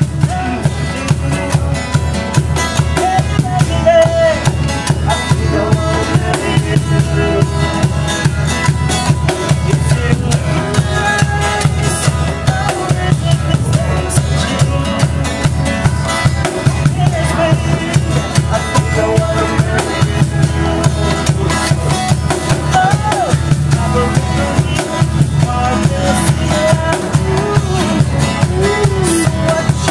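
Two acoustic guitars and a cajón box drum playing a steady beat.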